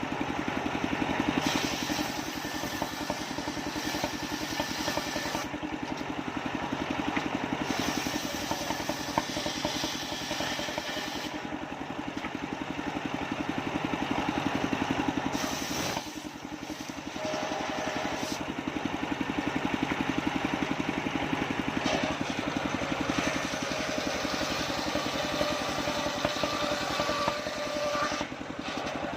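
Engine of a mobile circular sawmill rig running steadily, with a brief drop in level about halfway through.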